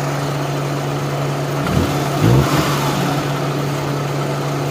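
Suzuki Mehran's small three-cylinder petrol engine idling and hunting: the engine speed dips and then surges once about two seconds in before settling back to a steady idle. The mechanic puts the unstable idle down to water in the MAP, coolant-temperature and intake-air-temperature sensor connectors, mainly the MAP sensor.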